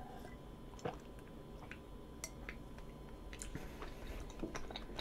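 Faint mouth sounds of drinking and swallowing milk from a glass, with scattered soft clicks; one slightly louder click about a second in.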